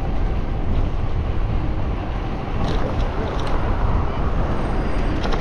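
Steady wind buffeting a GoPro's microphone while cycling along a city street, over a low rumble of road and traffic noise, with a few faint clicks.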